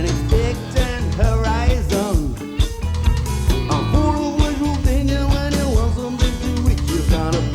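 Rock band music digitised from a cassette tape: drums and bass keep a steady beat under gliding melodic lines from guitar or voice.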